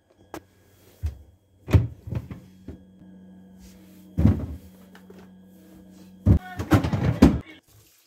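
Tomatoes being set into a plastic refrigerator crisper drawer and the drawer being handled: a string of separate knocks and thunks, ending in a quick clatter of knocks, with a faint steady low hum behind.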